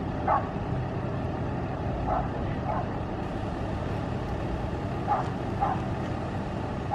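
A vehicle engine idling steadily, with short dog barks about five times over it.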